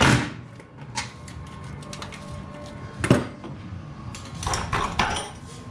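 Hand tools working on bolts under a car: scattered metal clanks and clicks, a sharp knock about three seconds in and a run of quicker clicks near the end.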